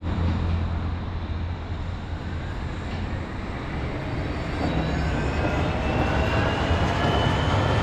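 Wuppertal Schwebebahn suspended railway car running, a steady rumble with a low hum. From about halfway a whine rises in pitch and the sound grows a little louder.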